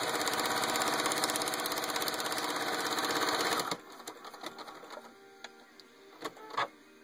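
Serenade domestic sewing machine running fast and steadily, stitching a 1/4 inch seam through layers of cotton and ripstop fabric; it stops abruptly a little under four seconds in, followed by a few light clicks and taps.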